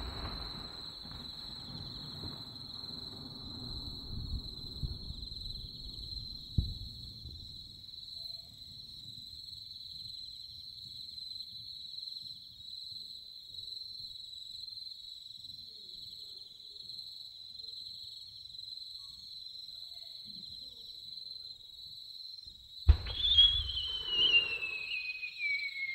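Insects trilling steadily at a high pitch, with the low rumble of a firework burst dying away over the first few seconds. About 23 seconds in, a firework shell is launched with a thump and climbs with a whistle that falls in pitch.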